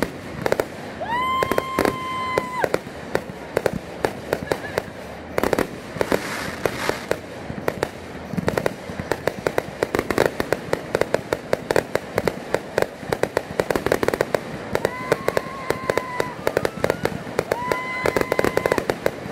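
Aerial fireworks firing from the ground in a rapid, unbroken string of shots and bursting reports. Whistling tones come in with a quick rise and then hold a steady pitch, once a second or so in and twice near the end.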